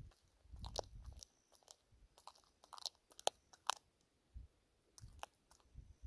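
Six-banded armadillo chewing and biting into a dead boa's body: irregular crunching bites with sharp clicks, the sharpest crack about halfway through.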